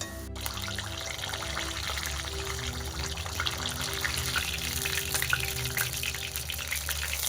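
Hot oil sizzling and crackling steadily as shaphaley fry, with small pops throughout, over soft background music.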